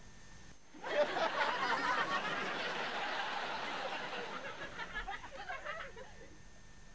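Sitcom laugh track: audience laughter breaks out suddenly about a second in, swells, then dies away by about six seconds.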